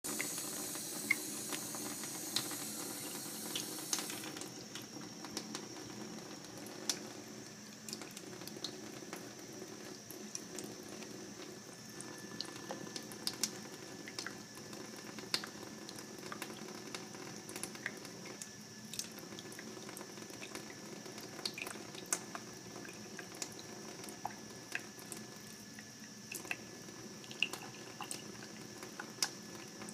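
A thin stream of water from a kitchen faucet running steadily into a stainless steel sink, with scattered sharp ticks of drips and splashes. The hiss is brighter and a little louder for the first four seconds.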